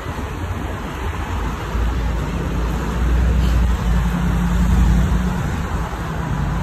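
Cars driving past on a wet road: a steady low traffic rumble that swells between about two and five seconds in.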